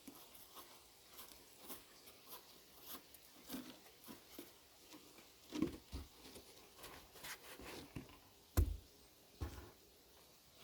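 Swiss Army knife awl (reamer) being twisted into an old wooden board to bore a hole, its edge cutting the wood: faint, irregular scraping and creaking, with one sharp knock about eight and a half seconds in.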